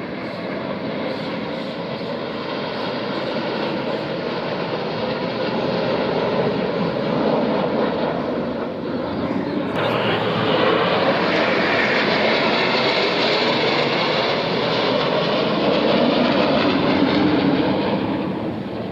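Military jet aircraft flying past: a continuous rushing engine noise that grows louder and brighter about ten seconds in, with a slowly sweeping, phasing tone as it passes, then eases near the end.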